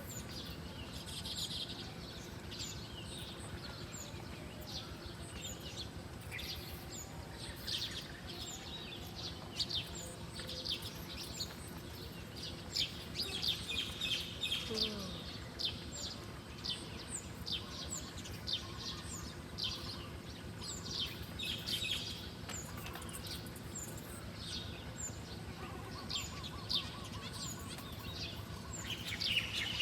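Small birds chirping: many short, high chirps in quick succession, over a steady low background noise.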